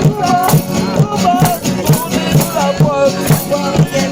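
Music with a steady beat and shaker-like percussion under a wavering pitched melody line.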